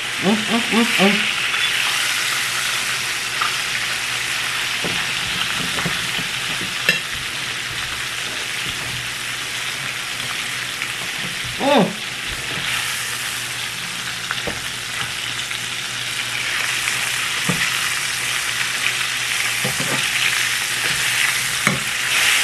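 Chicken frying in a pan, a steady sizzle throughout, with a few light clicks.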